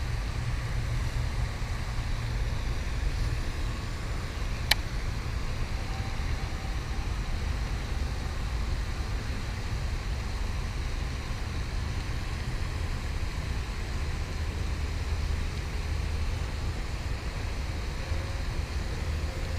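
Steady low outdoor rumble with no distinct source, with a single sharp click about five seconds in.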